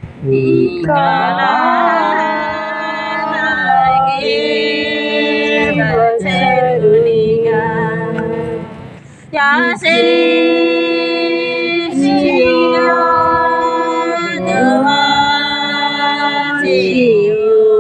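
Women singing together unaccompanied, a folk song in long held phrases with short breaks between them.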